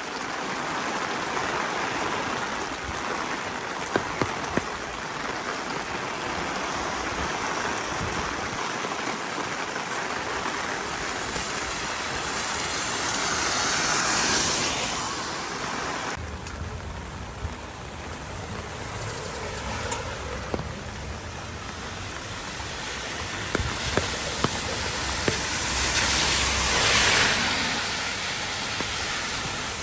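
Ride inside a bus on a rain-soaked road: a steady hiss of tyres on wet asphalt and rain. It swells twice into a louder swish, just before halfway and near the end. A low engine rumble comes up about halfway, with a few light clicks and knocks.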